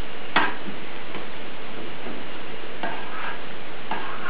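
A spoon spreading and pressing curd casserole mixture in a stainless-steel baking form: one sharp clink against the metal about half a second in, then a few soft scrapes near the end, over a steady hiss.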